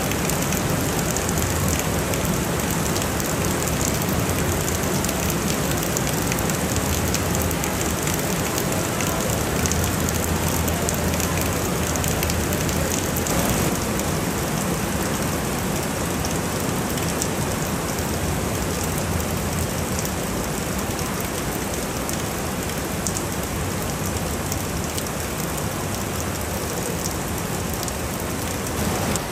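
Steady, heavy rain falling, an even, dense hiss with no let-up.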